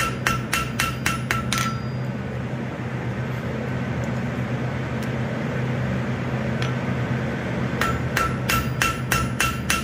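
Hand hammer striking a small steel piece on the anvil in quick, light blows, drawing the forged turtle's flippers out to points, each blow ringing with a clear metallic tone. A run of about seven strikes in the first two seconds, a pause, then about eight more near the end. A steady low hum runs underneath.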